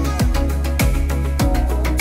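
Background music with a steady beat: a deep drum hit about every 0.6 seconds under a full instrumental backing.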